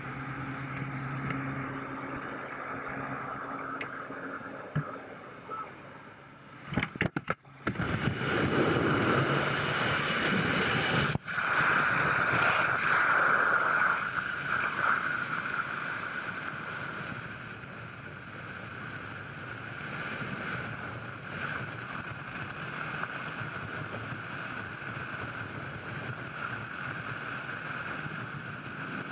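Low, steady drone of the jump plane's engines heard inside the cabin, then a few sharp crackles about seven seconds in as the skydivers exit. After that comes the loud rush of freefall wind on the camera, loudest for the first few seconds and then steady.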